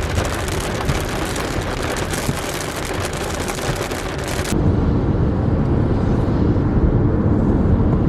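Heavy rain falling, with many separate drops ticking on a hard surface. About four and a half seconds in it cuts abruptly to a louder, steady low rumble.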